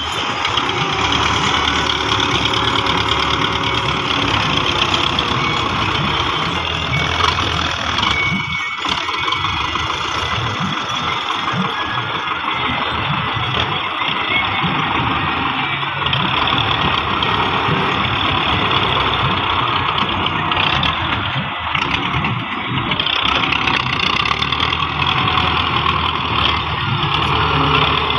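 Belarus tractor's diesel engine running steadily while it works its front loader, lifting a bucket of earth and tipping it into a cart.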